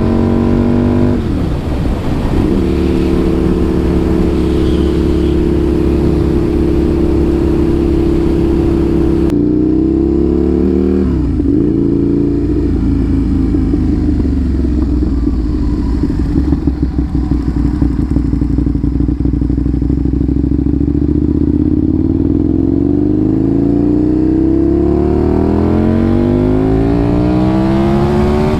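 2007 Aprilia RSV 1000R's V-twin engine pulling under way through its new exhaust. The pitch drops sharply about a second in and again about eleven seconds in, as at gear changes, then climbs steadily as the bike accelerates near the end.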